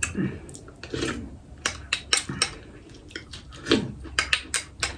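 A ceramic spoon clinking and scraping against a small ceramic bowl and plates in a quick, uneven series of sharp clicks.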